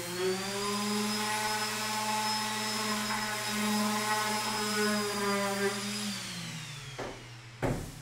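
Electric random-orbit sander running against a wooden frame with a steady whine, then switched off about six seconds in and winding down. A sharp knock near the end as the sander is set down on the wooden bench.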